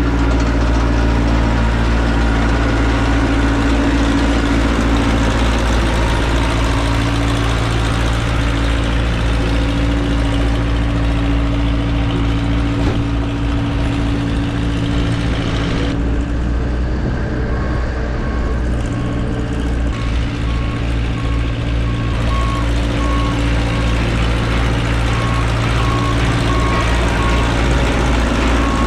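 Ingersoll-Rand SD-40 single-drum roller's diesel engine running steadily as it drives over the freshly spread gravel base. From a little past halfway, a backup alarm beeps at an even pace over the engine.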